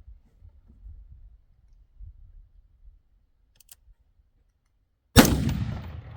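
A single AR-style rifle shot about five seconds in: one sharp, loud report whose echo dies away over the following second, fired while zeroing the rifle's optic. Before it, only a faint low rumble and a couple of faint ticks.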